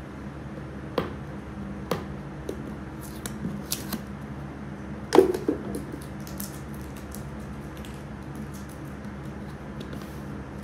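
Cardboard box being opened by hand: scattered crackles and clicks of cardboard and tape, with one louder knock about five seconds in. A room fan hums steadily underneath.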